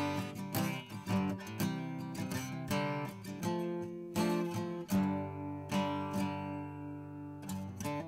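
Background music: an acoustic guitar playing plucked notes and strummed chords.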